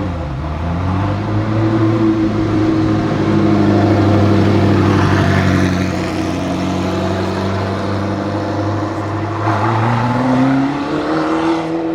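Straight-piped Ferrari F40 LM twin-turbo V8 running at steady revs for several seconds, then revving up again near the end.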